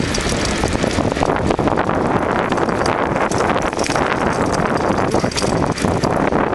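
Steady wind noise buffeting the microphone at speed, over the sound of mountainboard wheels rolling on asphalt, with frequent small knocks.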